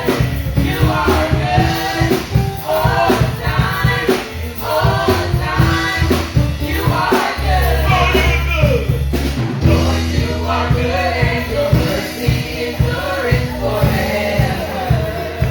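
Gospel worship song: several voices singing a melody over a band, with long held bass notes and a steady beat.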